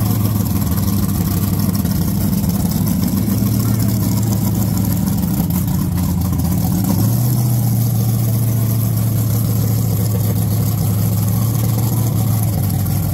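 Drag car's engine idling steadily and loudly, its idle rising slightly about seven seconds in.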